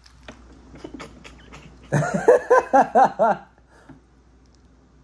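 Crunchy chewing of a crisp snack, then about two seconds in a person's voice gives a quick run of about six short, high vocal sounds, each rising and falling in pitch, lasting about a second and a half.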